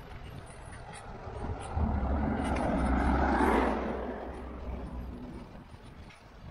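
A motor vehicle passing close by. Its engine hum and tyre noise swell about two seconds in, peak, then fade away.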